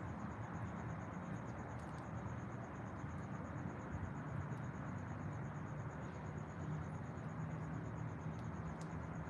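Insect chirping: one high note pulsing evenly and rapidly without a break, over a steady low outdoor rumble.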